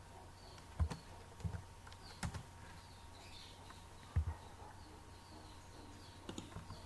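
Faint room tone with a steady low hum, broken by four soft clicks with a dull knock, from working the computer mouse and keyboard. Faint bird chirps repeat evenly in the background.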